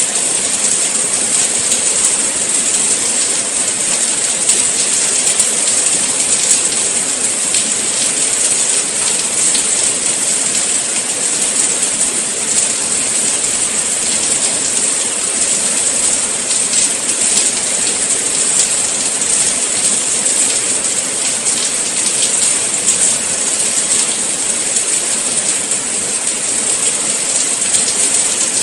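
Steady rain falling, an even hiss with fine patter of drops throughout.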